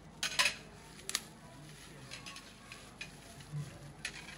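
Metal utensils knocking against cooking pots: a few sharp clinks, two close together near the start, another just after a second in and one near the end, over a low steady hiss.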